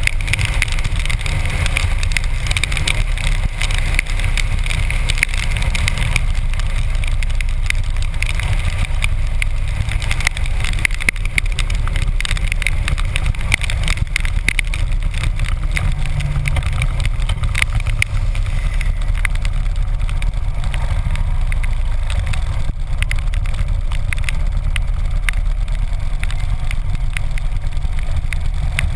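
Harley-Davidson motorcycle's V-twin engine running steadily at road speed, mixed with rush from wind and rain, and faint ticks of raindrops hitting the camera.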